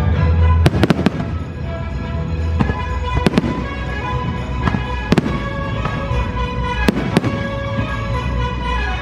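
Fireworks bursting with a string of sharp bangs, several close together about a second in and more at irregular intervals, over the fireworks show's music soundtrack.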